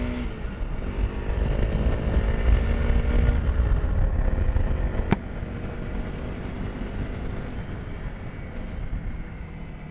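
Honda CRF 300L's single-cylinder engine running steadily, with a low rumble of wind on the microphone. A sharp click comes about five seconds in, and the sound gets gradually quieter after it.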